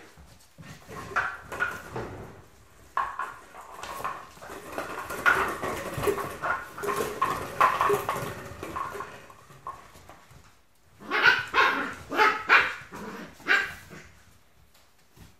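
Smooth Collie puppies barking repeatedly in play, with a run of louder, sharp barks near the end.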